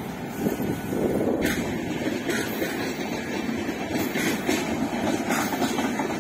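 Indian Railways express train rolling past: a steady rumble of wheels on rail, with a few sharp clacks as wheels cross rail joints.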